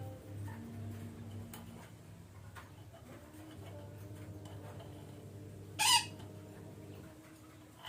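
A parakeet gives one short, harsh squawk about six seconds in, over a steady low hum.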